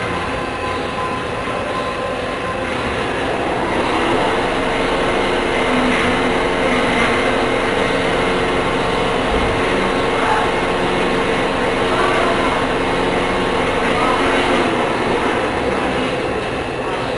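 CNC machine tool running: a steady mechanical noise with a hum, growing louder about four seconds in.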